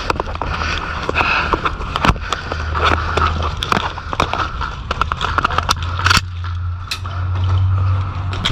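An airsoft player reloading and handling gear: scattered sharp clicks and knocks of the magazine and kit over a low, steady rumble.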